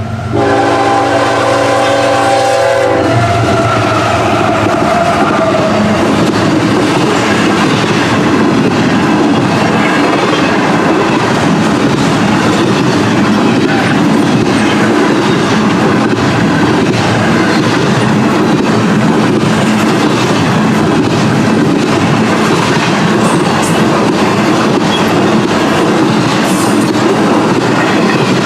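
Freight train locomotive horn sounding a chord for about three seconds, then the train passing close by with a loud, steady rumble of locomotive and rolling cars on the rails.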